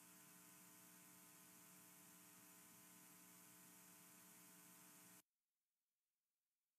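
Near silence: a faint, steady hum with light hiss, which cuts off to dead silence about five seconds in.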